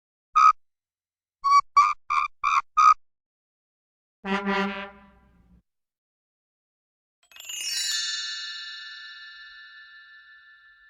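A run of cartoon sound effects: one short high squeak, then five quick squeaks in a row, a low buzzy honk about four seconds in, and a bell struck about seven seconds in that rings out and fades slowly.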